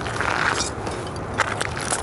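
Sneaker soles grinding and crunching the broken pieces of a 1:18 scale Ferrari model car into gravel: continuous scraping and crackling with a few sharper cracks in the second half.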